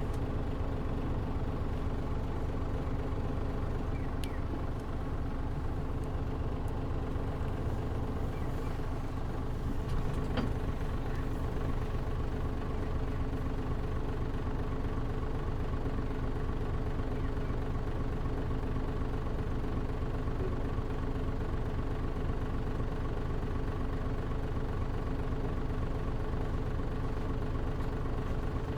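Interior sound of a Mitsubishi Fuso KL-MP37JM city bus's diesel engine running steadily, heard from the passenger cabin with the air conditioning off. There is a low rumble, a few faint rattling clicks and no change in engine pitch.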